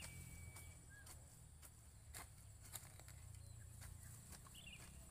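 Faint, irregular knocks of hand hoes chopping into soft soil, about one every half second to a second, over a low outdoor rumble. Two brief faint bird chirps, one about a second in and one near the end.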